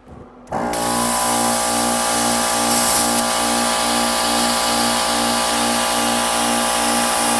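Lincoln Electric Tomahawk 375 Air plasma cutter cutting steel plate, starting about half a second in. The plasma arc and air give a loud, steady hiss over the hum of the machine's built-in air compressor, with a regular low throb.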